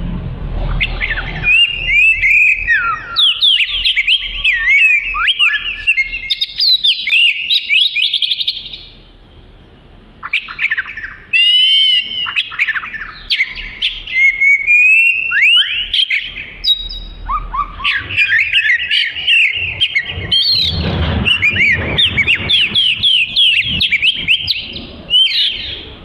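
Oriental magpie-robin in vigorous song: fast, varied runs of clear whistles and chattering notes, with a short break about ten seconds in.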